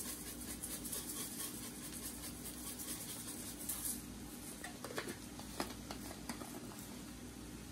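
Seasoning shaken from a shaker bottle over a skillet of meat and onions: a faint, gritty, high-pitched patter for the first few seconds, then a few light clicks from handling the bottle.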